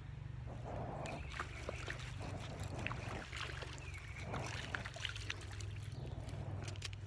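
Light splashing and sloshing of water with scattered small clicks, over a steady low hum.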